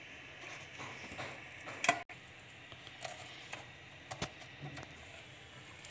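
A fork pricking holes in raw potatoes: faint, irregular clicks and taps, with one sharper click about two seconds in.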